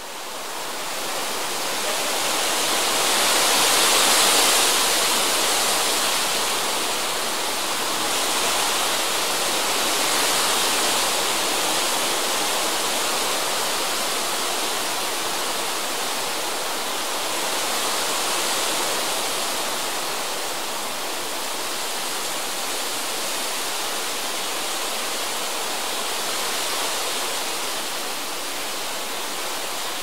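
Wind rushing in a steady hiss, strongest in the high range. It builds to its strongest gust about four seconds in, then keeps rising and falling in gentler swells.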